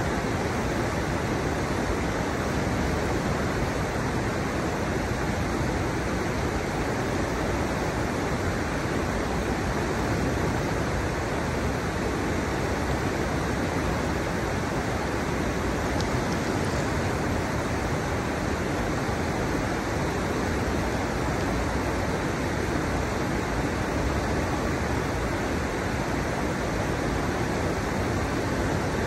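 River water pouring over the low drops of a stepped riverbed, a steady, unbroken rush.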